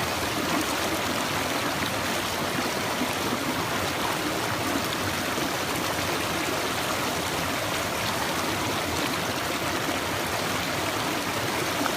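Small stream and tiny waterfall, water splashing and running steadily over rocks.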